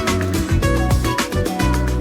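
Background music: a Latin-style song with a steady beat and no vocals in this stretch.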